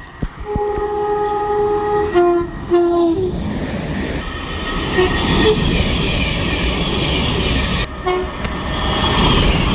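Train horn sounding: one long steady high note, then two shorter, lower notes. The train's loud running rumble follows, with one more brief horn note near the end.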